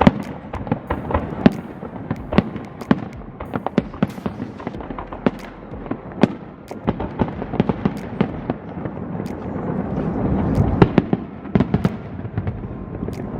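Aerial fireworks display going off: a rapid, irregular run of sharp cracks and bangs, several a second, over a low rumble. It grows heavier about ten seconds in.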